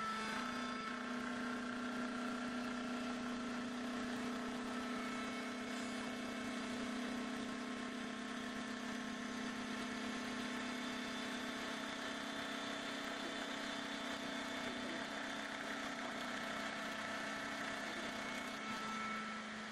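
Five-axis CNC router spindle running steadily while machining a curved wooden torsion handrail, a constant hum with fainter higher whining tones over it.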